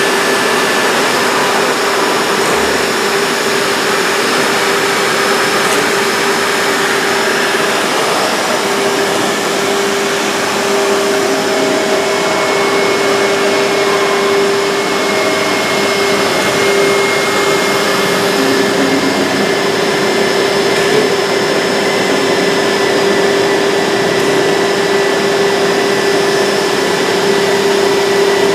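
Woodworking machinery running steadily: a loud, even rushing noise with a constant hum tone.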